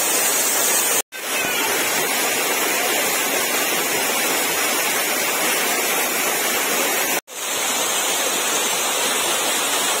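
Steady rush of a waterfall pouring over rock, broken twice by a sudden, very short gap in the sound, about a second in and about seven seconds in.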